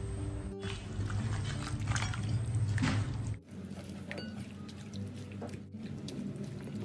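Wet squelching of a hand mixing raw chicken pieces into a yogurt and spice marinade in a steel bowl, over soft background music.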